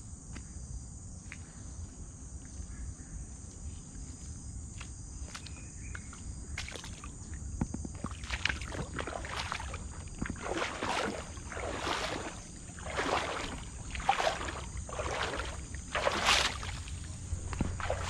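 Slow footsteps on a wet, muddy and stony riverbank, scuffing about once a second through the second half and getting louder. Under them runs a steady high drone of insects.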